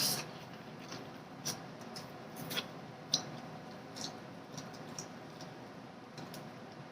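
Quiet eating of a shrimp and crawfish boil: scattered small clicks and crackles of handling and chewing the seafood, a few sharper ones in the first three seconds.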